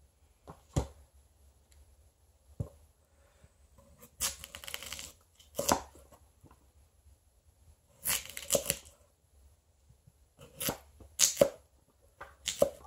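A plastic cutting board set down with a couple of short knocks, then a Blackjack Model 125 hunting knife slicing through a raw potato in about five separate strokes, each under a second long, the blade meeting the board.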